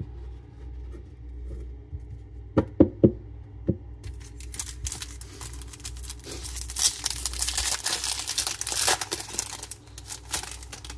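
A few light knocks, then the foil wrapper of a Topps 2024 baseball card pack crinkling and tearing as it is ripped open by hand, loudest a couple of seconds before the end.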